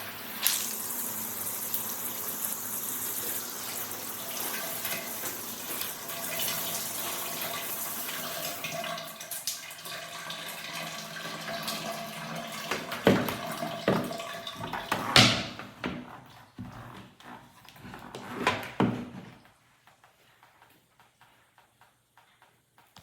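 Water spraying steadily from a dual rain and handheld shower head. In the second half come several sharp knocks and clatters, and then the spray stops.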